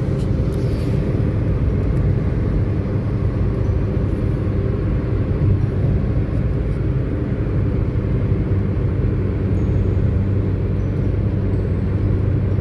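Steady low rumble of a car driving at motorway speed, heard from inside the cabin: tyre and engine noise that stays even throughout.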